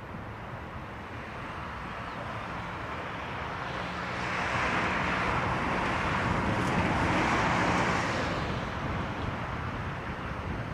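Low, steady drone of a Transnet Class 36 diesel-electric locomotive's engine as it approaches slowly hauling a short freight. A broad rushing noise swells up about four seconds in and fades out near the end.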